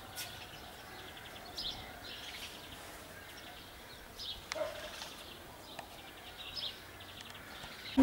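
Faint bird calls: scattered short high chirps and quick trills, with one lower call about four and a half seconds in.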